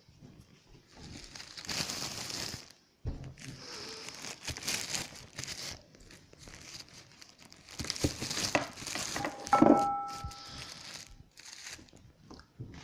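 Plastic wrapping crinkling and rustling in irregular bursts, with a short squeak about ten seconds in.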